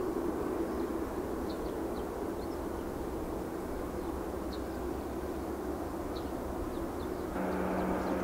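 Boeing 747-8F freighter's GEnx turbofan engines running at low thrust as the jet rolls along the ground: a steady rumble with a held whining tone. About seven seconds in, the sound steps up suddenly to a louder rumble with a lower steady tone.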